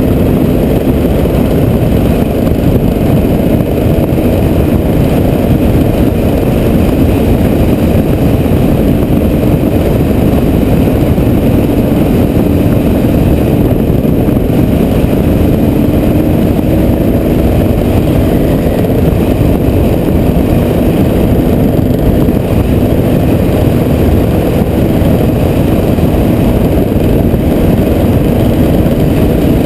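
Strong dust-storm wind buffeting the microphone: a loud, steady low rumble with no breaks. Under it a faint hum slowly drifts up in pitch.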